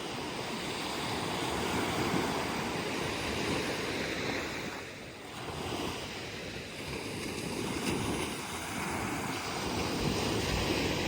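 Ocean waves breaking and washing up on a sandy beach, a continuous surf wash that swells and eases, dipping briefly about halfway through; some wind buffeting on the microphone.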